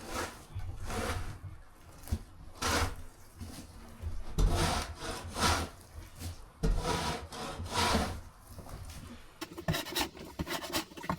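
Scraping strokes on wood, roughly one a second, followed near the end by a quicker run of rustling and clicks.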